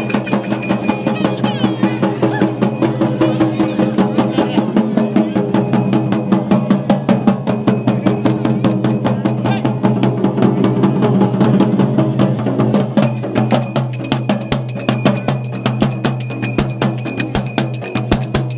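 Festival percussion: drums beaten in a fast, steady rhythm with small brass hand cymbals clashing along, over a steady low drone.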